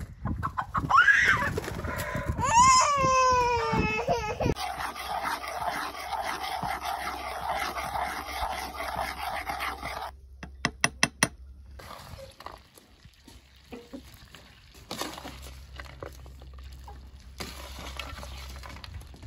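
A chicken gives loud calls with rising and falling pitch. Then comes a steady hiss, fitting butter melting in a small pan over charcoal. About ten seconds in, a spoon clinks sharply against the pan several times, followed by quieter rustling of dried barberries being sorted by hand.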